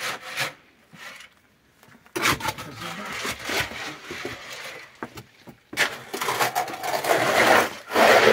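A shovel scraping and turning a gravel and cement mix in a mortar trough as concrete is mixed by hand: rough, gritty scrapes that get louder about six seconds in.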